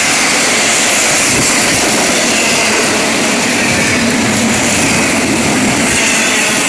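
CSX intermodal freight train's container and trailer cars rolling past close by: a loud, steady noise of steel wheels running on the rails.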